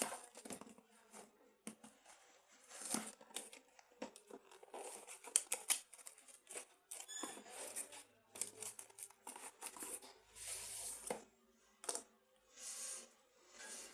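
Packaging being torn open and crinkled by hand: irregular rips and rustles with a few sharp clicks.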